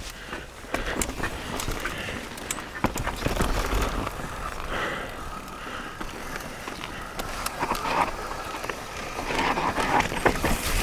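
Mountain bike riding over a rough trail: tyre noise with rattling and frequent sharp knocks.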